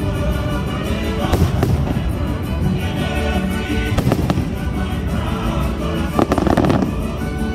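Aerial fireworks shells bursting, with sharp bangs about a second and a half in and again about four seconds in, then a burst of crackling stars near the end, over the show's music soundtrack.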